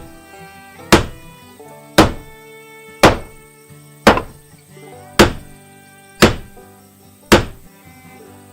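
Background music of held notes, with a heavy thunk landing about once a second. The thunks stop shortly before the end.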